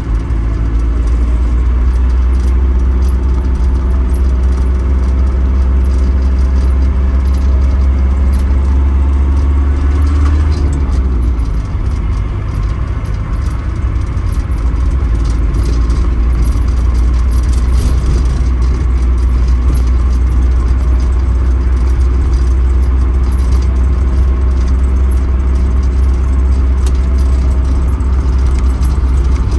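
Steady low engine and road drone heard inside a moving camper van's cab, with small rattles and jingling from loose items. About ten seconds in the engine note dips and then picks up again.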